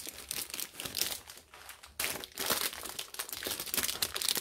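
Packaging crinkling and rustling as hands open a mailing bag and pull out a silicone mould in a clear plastic sleeve: a dense crackle of many small clicks that gets louder about two seconds in.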